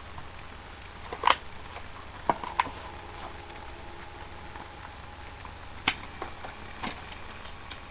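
Trading card packs and packaging being handled: about five short, sharp clicks and taps spread over several seconds, the loudest about a second in, over a steady low hum.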